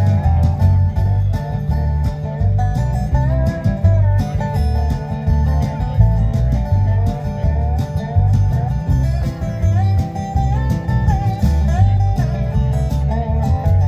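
Live country band playing an instrumental break: strummed acoustic guitar, bass and drums keeping a steady beat under a lead melody that slides between notes.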